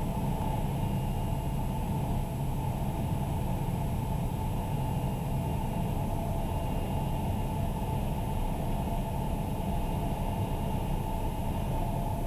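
Steady cockpit noise of a TBM850 single-engine turboprop on final approach: engine, propeller and airflow running at an even level.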